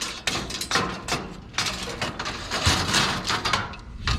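Irregular knocks, bangs and clatter of bulky items being shifted and stacked on a truck load, several sharp hits over a few seconds.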